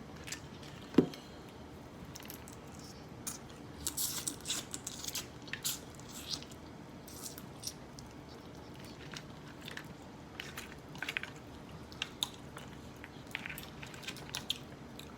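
Close-up eating sounds from a seafood boil of crab legs and shrimp: wet chewing, smacking and small clicks scattered through, with one sharp click about a second in.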